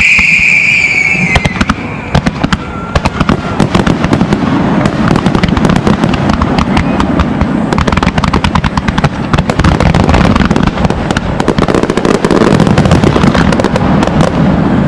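New Year's fireworks: a high whistle fading out over the first second or so, then a long run of rapid crackling pops over a low rumble of bangs.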